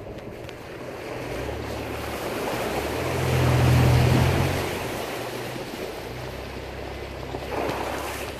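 Four-wheel-drive vehicle's engine pulling through a muddy puddle, with water and mud splashing up against the body. The rush swells to its loudest about three to four seconds in, then settles back to the steady engine drone.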